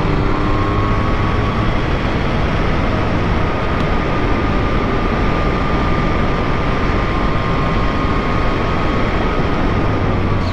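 Yamaha MT-09 three-cylinder engine running steadily at road speed, mostly buried under heavy wind rush on the microphone, with a faint steady whine.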